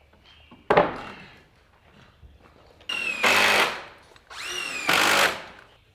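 A sharp knock, then a cordless impact driver running twice, each about a second, driving screws into framing lumber: the motor whines and the hammering kicks in louder partway through each run as the screw bites.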